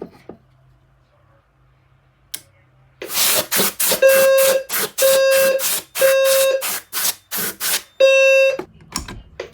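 EST Genesis fire alarm notification appliances sounding. After about three quiet seconds with a couple of clicks, a horn starts with a rapid pulsing buzz. A low buzzy tone joins it in a temporal-three pattern: three pulses, a pause, then the cycle starting again near the end.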